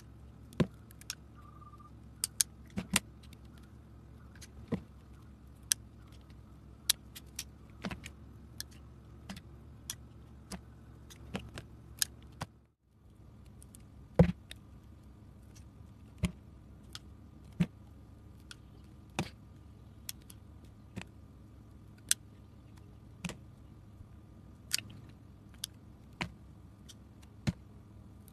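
Utility knife blade cutting into a bar of soap: crisp, irregular snaps as slices break away, roughly one every second or two.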